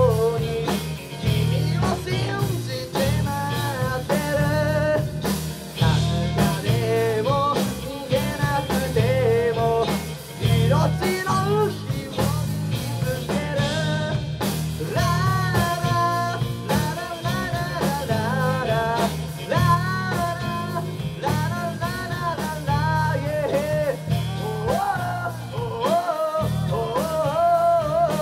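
Live rock band playing a song: a singer over electric guitars, bass and drum kit.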